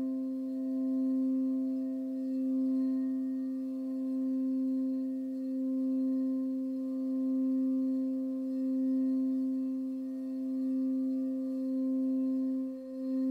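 Crystal singing bowl holding one low, steady tone with a few faint higher overtones, swelling and fading gently about every second and a half.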